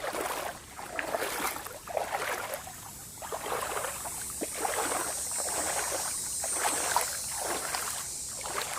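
Footsteps wading through shallow swamp water, sloshing and splashing about once a second, over a steady high hiss.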